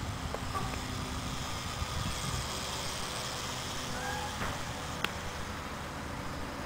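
The small motor and propeller of a radio-controlled kite-plane flying overhead, a faint steady buzzing whine, with a single click about five seconds in.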